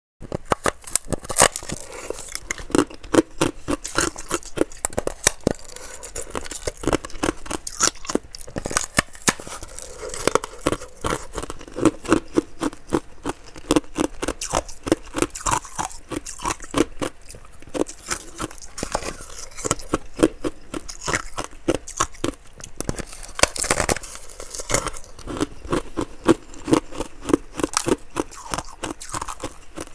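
Close-miked crunching of ice being bitten and chewed: sharp, irregular cracks several times a second, with louder snaps about a second and a half in and again late on.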